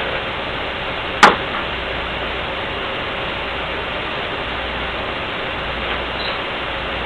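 Steady even hiss, with one sharp click about a second in as small injection-pump parts are handled on the bench.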